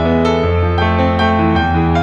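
Background music: piano notes played over sustained low bass tones, a new note struck every fraction of a second.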